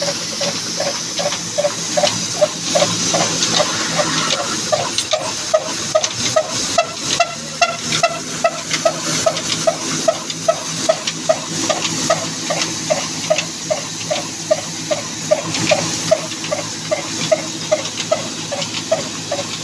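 Large old single-cylinder horizontal diesel engine with a heavy flywheel running steadily, its exhaust beating about two to three times a second. Under the beats is a continuous hiss and rattle from the belt-driven grain-cleaning machine it powers.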